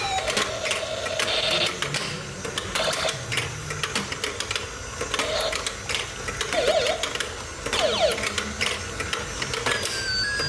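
Plastic toy hammer tapping the pop-up moles of an apple-shaped whack-a-mole toy: a busy run of light plastic clicks and taps, with a couple of short electronic chirps from the toy about seven and eight seconds in.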